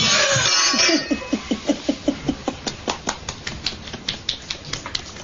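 China plates, cups and cutlery crashing onto the floor as a tablecloth is yanked off a laid table in a failed tablecloth-pull trick; the crash ends about a second in. Then rapid, rhythmic laughter, about four bursts a second, growing fainter.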